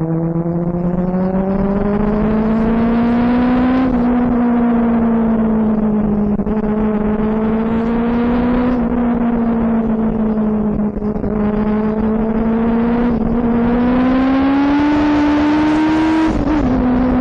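Benelli 600i motorcycle's inline-four engine running under way at riding speed, its pitch rising and easing gently several times, then stepping down near the end.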